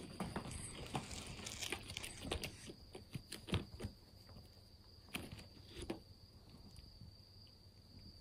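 A kitten's paws pattering and skittering on a wooden floor as it scampers about with a toy: irregular soft taps and scrapes, busiest in the first few seconds, with a few more about five and six seconds in. A faint steady high whine sits underneath.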